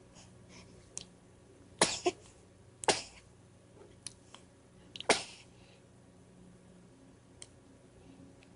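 Hiccuping: a run of short, sharp hiccups, three loud ones about a second apart and then two seconds apart, with fainter ones between and one near the end.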